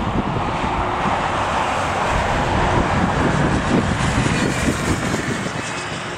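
Boeing 747-8F's GEnx jet engines running at taxi power as the freighter rolls slowly past, a steady rushing engine noise that swells a little midway and eases near the end. Gusts of wind buffet the microphone underneath.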